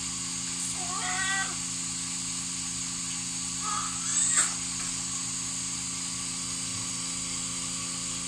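Newborn baby crying in two short wails, about a second in and about four seconds in, over a steady background hum.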